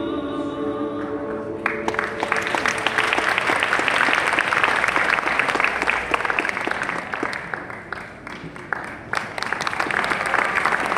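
A choir holds the final chord of its song, which fades out about two seconds in. An audience then applauds, dipping briefly about eight seconds in before the clapping picks up again.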